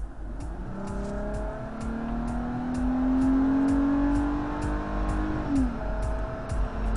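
Kia Borrego's 3.8-litre V6 accelerating hard, heard from inside the cabin: the engine note climbs steadily, drops in pitch at an upshift about five and a half seconds in, then starts climbing again.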